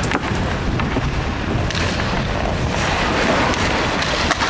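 Ice hockey rink noise: a loud, steady rush with a heavy low rumble and a few sharp knocks.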